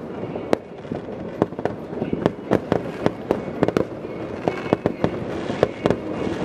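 Fireworks exploding: a dense run of sharp bangs at irregular intervals, several each second, over a steady background noise.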